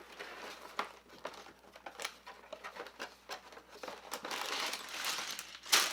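Plastic Lego parts bags crinkling as they are handled, with scattered sharp clicks; the crinkling grows denser in the last two seconds.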